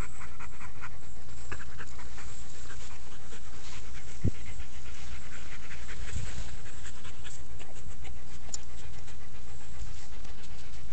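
A dog panting close by in quick, rhythmic breaths, over a steady low rumble.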